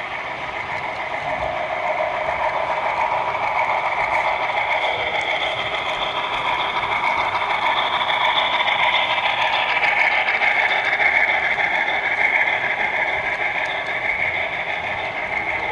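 HO scale model freight train rolling over a model girder bridge, the wheels and cars giving a steady rolling whir and rattle that grows louder through the first few seconds and stays strong through the middle.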